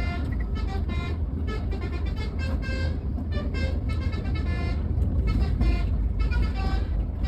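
Bus 'telolet' multi-tone air horn playing a quick melody of short, changing notes over a steady low rumble.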